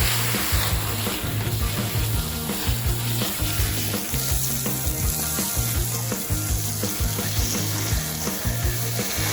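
Water jet spraying with a steady hiss as it blasts degreaser off a gas string trimmer.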